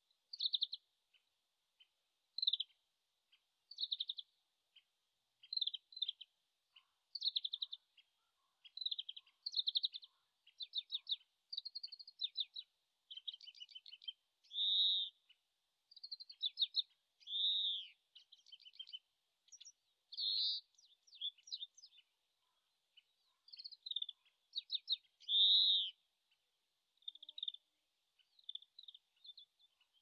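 Oriental greenfinch singing: repeated short twittering trills broken by a few long drawn-out notes. The song is faint and distant, and it sounds like a bird still practising its song.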